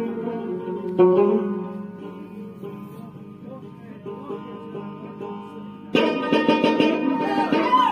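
Rabab playing a melody of plucked notes that grows quieter through the middle; about six seconds in, a louder, fuller section starts abruptly.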